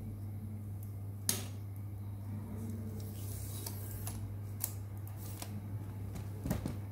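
Light clicks and knocks of things being handled, a few seconds apart, over a steady low hum.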